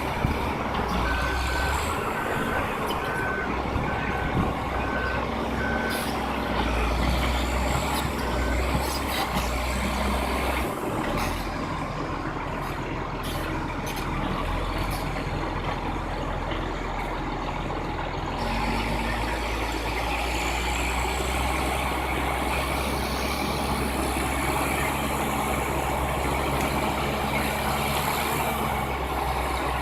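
Heavy equipment engines running with a steady low drone. For the first several seconds a reversing alarm beeps about once a second. The engine sound shifts abruptly twice as the scene changes.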